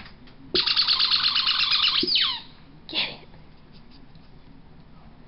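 A dog's squeaky rubber ball squeaked fast and over and over as she mouths it: a rapid run of high squeaks lasting about a second and a half, ending in falling squeaks. A fainter short sound follows about a second later.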